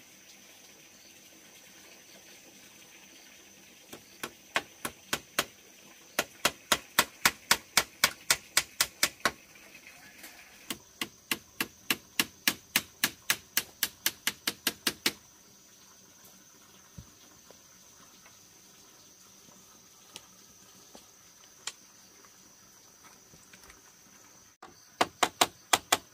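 Hammer driving nails into bamboo: runs of sharp taps, about three a second, for some ten seconds with a short break midway, then a quick run of a few more near the end.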